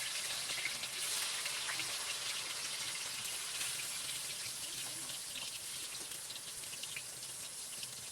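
Steady kitchen hiss with small scattered crackles, slowly fading.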